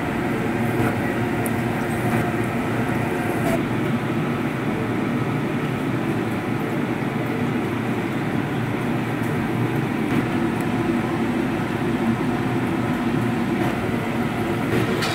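Batter-coated paneer sticks sizzling and bubbling as they deep-fry in hot oil in an iron kadai, over a steady low rumble, with a few small pops from the oil.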